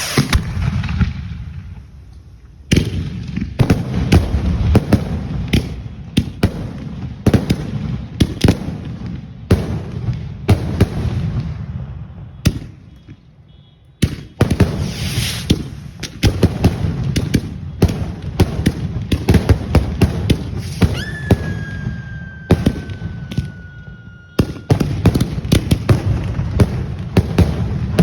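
Fireworks going off in rapid volleys of sharp bangs and crackles, several a second, with short lulls between volleys. Near the end, a whistle sounds for a few seconds, falling slowly in pitch.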